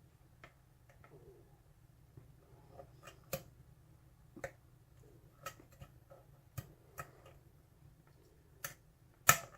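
Faint, irregular metallic clicks of a lock pick working the pins of a pin-tumbler lock under tension, with a sharper click near the end as pin five sets.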